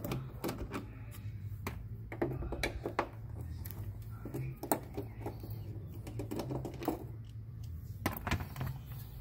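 Irregular light clicks and taps of an 8 mm nut driver working the bolts that hold a tail-light assembly, over a low steady hum.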